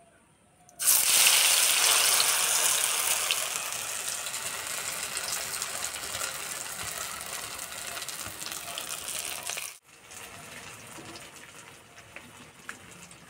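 Batter-coated dough pieces going into hot oil in a kadai: a loud sizzle starts suddenly about a second in, with small crackles, and slowly dies down. After a brief break near the end, a quieter sizzle goes on.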